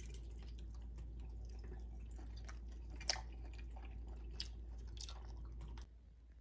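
Water from a kitchen tap splashing into a stainless steel sink over strawberries in a mesh strainer, with a few sharp clicks; it cuts off near the end.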